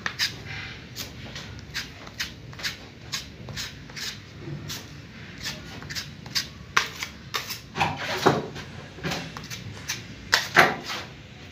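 Metal putty knife scraping and clicking against drywall as it spreads putty along a ceiling joint: a quick, irregular run of short scrapes, loudest about eight seconds in and again near the end.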